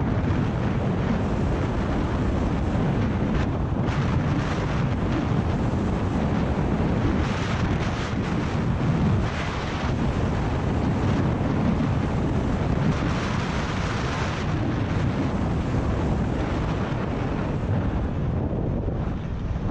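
Wind buffeting a helmet-mounted action camera's microphone as a skier descends at about 60 to 75 km/h, with the skis hissing on the snow. The hiss grows brighter for a couple of seconds around eight and again around thirteen seconds in.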